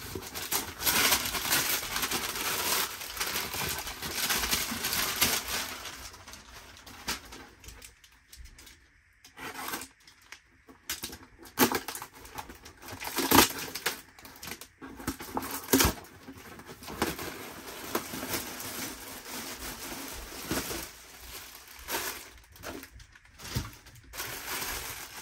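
Paper gift packaging rustling and crinkling as a gift box and a paper bag are handled and opened. The rustling is dense for the first several seconds, then thins to occasional handling noises and a few sharp knocks.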